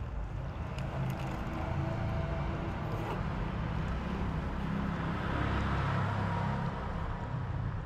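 Outdoor street background: a steady low rumble that grows a little louder past the middle, with faint scattered clicks.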